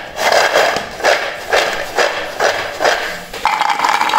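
Crisp fried kulkuls rattling against a steel bowl as they are tossed, a rough shake about twice a second, with a steady hiss near the end.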